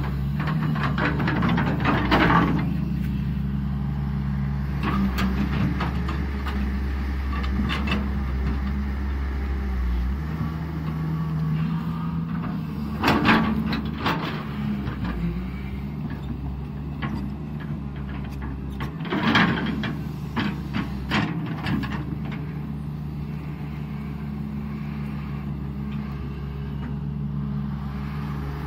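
Caterpillar 320 hydraulic excavator's diesel engine running steadily under working load, its pitch shifting a little as the hydraulics work the arm. A few loud scrapes and knocks of the steel bucket in the dirt stand out near the start and twice later on.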